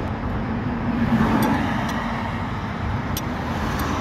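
Steady road traffic noise, swelling for a moment about a second in, with a few faint clicks.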